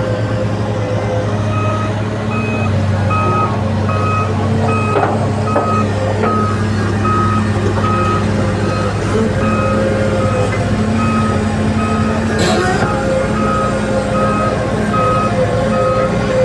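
Heavy vehicle's reversing alarm beeping steadily, a bit more than once a second, over its diesel engine running. The beeping starts about a second and a half in, and a brief sharp noise cuts through near the end.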